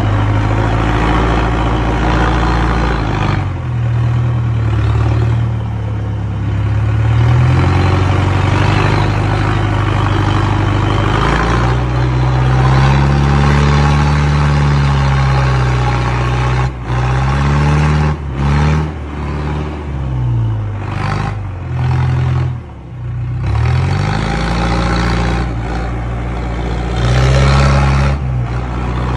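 Tractor engine running hard under a full load of corn sacks, close to its upright exhaust pipe. Its speed rises and falls again and again as the throttle is worked, with a few brief drops in the second half.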